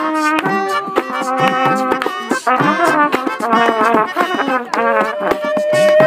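Trumpet playing a melody over hand drums and clapping, ending on a long held note near the end.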